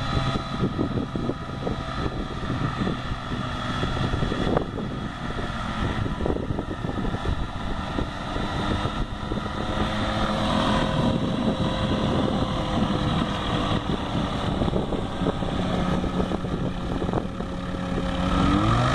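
Fisher FP404 biplane's engine and propeller running with wind buffeting the microphone; the engine holds a fairly steady note, then revs up with a rising pitch near the end.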